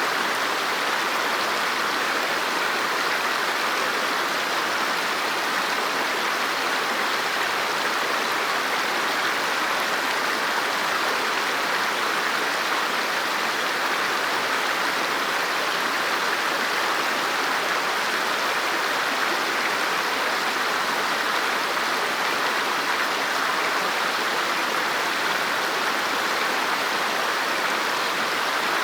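River water flowing over rocks: a steady, even rush with no single splashes standing out.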